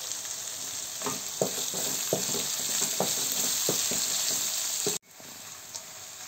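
Sliced onions sizzling in hot oil in a kadai, while a utensil stirring them scrapes and knocks against the pan about eight times. About five seconds in the sizzle drops abruptly to a quieter level.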